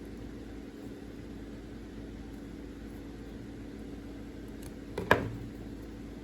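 Steady low hum with a single sharp click about five seconds in.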